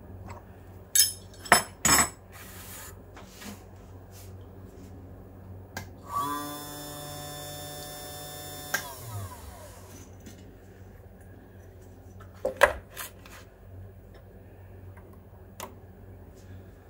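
A small CNC machine's motor whines for about two and a half seconds: it comes up to speed, holds a steady pitch, then quickly falls away. A few sharp clicks and knocks come before it and again after it.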